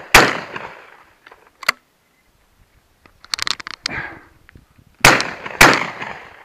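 Miroku MK70 Sporter 12-gauge over-and-under shotgun firing 28-gram target loads: one shot just after the start, a quick run of small clicks about three seconds in, then a fast pair of shots about half a second apart near the end. Each shot trails off in a short echo.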